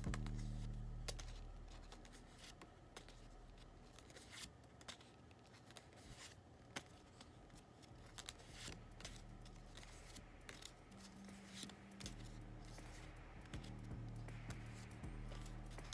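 Tarot cards being handled and flipped through one by one, with faint scattered clicks and slides of card stock.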